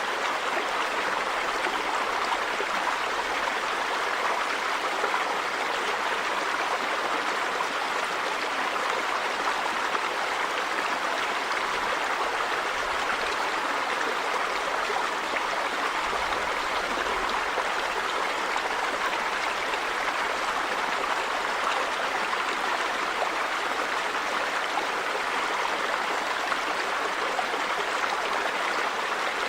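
River water running and splashing over rocks: a steady, even rush.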